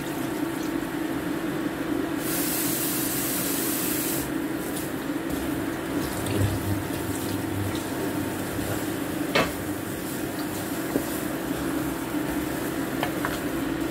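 Water pouring from a pot into a pot of beef stew in tomato sauce, a steady splashing fill as liquid is added for the braise. The splashing turns brighter and hissier for about two seconds early on, a sharp click comes a little past the middle, and a steady hum runs underneath.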